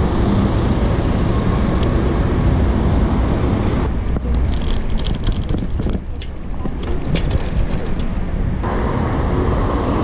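Wind rushing over a bike-mounted action camera's microphone while riding, over road traffic noise. From about four seconds in, a patch of quick clicks and rattles lasts for several seconds.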